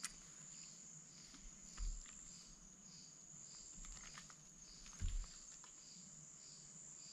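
Night insects: a steady high trill with a softer chirp pulsing about twice a second. Two low dull thumps come about two and five seconds in, with a few faint clicks.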